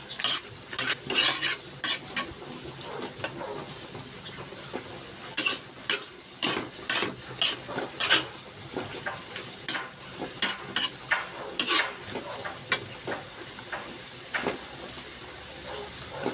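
Metal spatula scraping and clanking against a wok while sliced bitter melon with egg is stir-fried, over a steady sizzle. The strikes come irregularly in quick bunches and thin out over the last few seconds.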